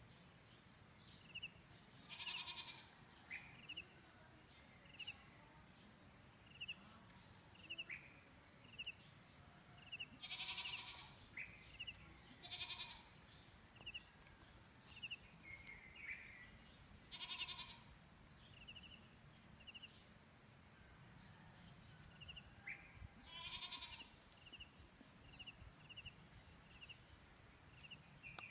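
Goats bleating faintly, about five separate bleats spread out, with short high chirps repeating about once a second in between.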